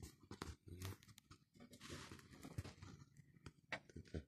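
Faint clicks and rustling of short cut pieces of steel wire rope being handled and laid onto sticky tape, with a longer crinkling rustle of the tape about two seconds in.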